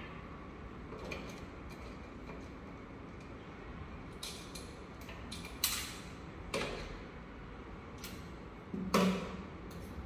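Scattered light clicks and knocks of a screwdriver and cable being worked into a solar inverter's PV input terminal, the sharpest a little past halfway through, over a low steady room hum.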